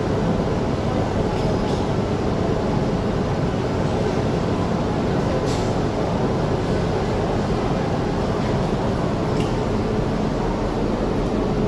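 Steady low rumble and hum of a funicular station with the train standing at the platform, and a few faint clicks.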